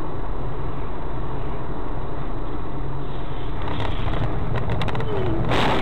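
Steady road and engine noise of a moving car, heard from the cabin through a dashcam. A few faint clicks come a little past halfway, and a short burst of hiss comes near the end.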